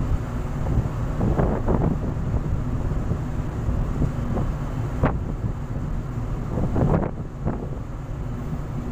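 Wind buffeting the microphone over the steady low rumble of a ship under way, with rushing sea water; a few stronger gusts come through briefly.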